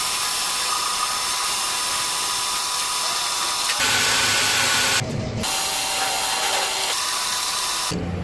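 Metal lathe cutting a metal workpiece: a loud, noisy, high cutting sound with thin steady whines, changing abruptly several times.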